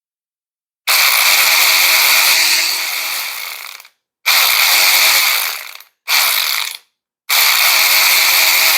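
VTEK V116-1 16.8V cordless ratchet wrench's motor and head running unloaded in four trigger pulls, a long one, a shorter one, a brief one and a last one that runs on past the end. Each starts at full speed at once and winds down on release: the ratchet has no variable speed, only on or off.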